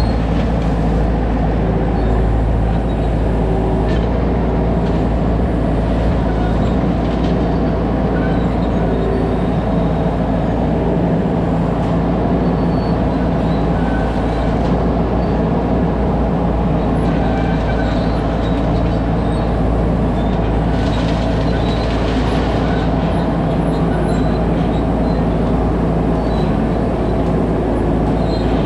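A 2001 skid steer's engine running steadily at working speed, with a few faint knocks over the top.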